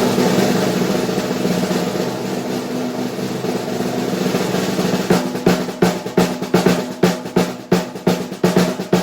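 Snare drum at a low, fat tuning: a sustained roll that breaks about five seconds in into separate strokes, several a second, over the drum's low ringing tone.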